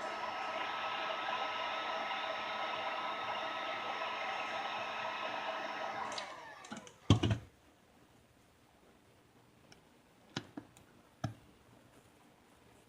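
A small electric motor-driven tool runs steadily, then is switched off and winds down with a falling pitch. A single loud knock follows, then a few light clicks.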